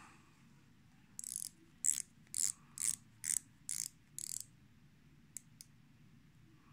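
A wristwatch being handled: seven short ratcheting bursts about half a second apart, then two light clicks.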